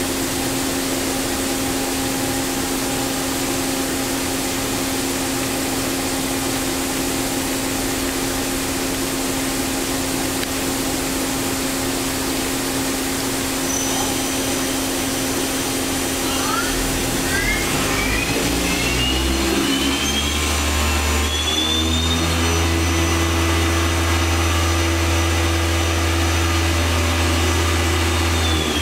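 Daewoo Puma 2000SY CNC lathe running with a steady hum. About sixteen seconds in, its spindle drive speeds up with a whine that rises in pitch over several seconds, then holds steady with a deep low tone, and starts to wind down at the very end.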